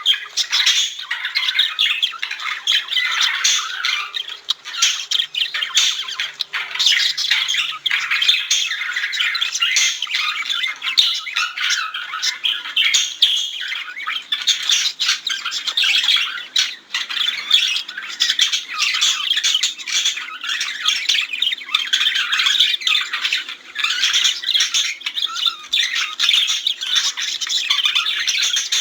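Budgerigars chattering and warbling: a dense, continuous stream of rapid chirps, squawky notes and warbles with no pauses, typical of a group of budgies singing.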